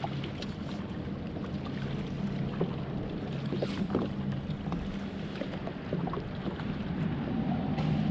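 Sea-Doo FishPro personal watercraft engine idling with a steady low hum under wind and water noise, growing a little louder near the end.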